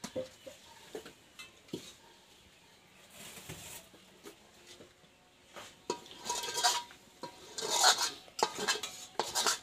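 A metal spoon scraping and clinking against a large metal wok and metal bowls as milky vermicelli pudding (semai) is spooned out. Scattered light clinks at first, then louder, busier scraping and clanks in the second half.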